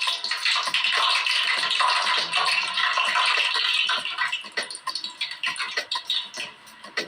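Hot cooking oil sizzling hard around a smartphone, then easing after about four seconds into scattered crackling and popping.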